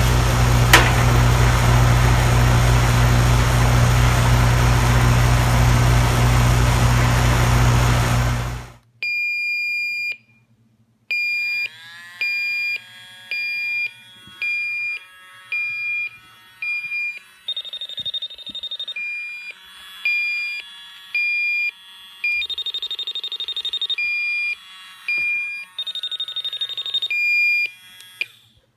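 An R-410A air conditioner's outdoor unit runs with a steady hum, cut off abruptly about nine seconds in. After that an electronic refrigerant leak detector beeps high and even, a little over once a second, and three times switches to a steady high tone for about a second or more, picking up refrigerant from a leaking evaporator coil.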